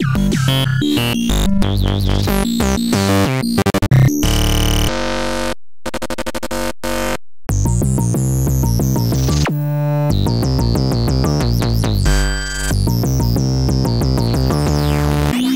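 Oscilloscope music: synthesized electronic tones whose stereo waveform draws the figures on an oscilloscope in X/Y mode. Pitch and timbre shift constantly, with sweeping glides and a few short silent breaks about six to seven seconds in.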